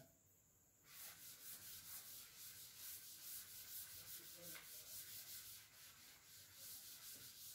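Blackboard duster wiping chalk off a chalkboard in faint, quick back-and-forth strokes, about three a second, starting about a second in.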